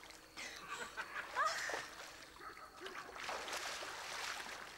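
Pool water splashing and sloshing as a swimmer does breaststroke, with a short high vocal cry about a second and a half in.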